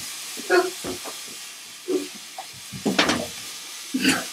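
A steady hiss with a few short breathy sounds from people, the loudest about three seconds in.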